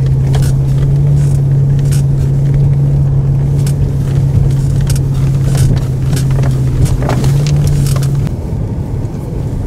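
A 4x4's engine droning steadily at a fixed pitch as it drives through deep snow, heard from inside the cabin, with scattered clicks and knocks; the drone drops away about eight seconds in.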